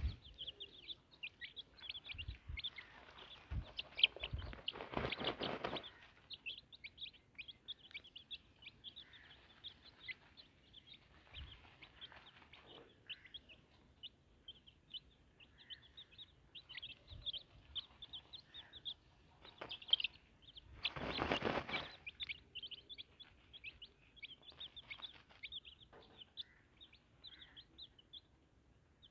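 Young chickens peeping, a continuous stream of short, high chirps. Twice, a few seconds in and just past the middle, a brief burst of rustling noise rises over them.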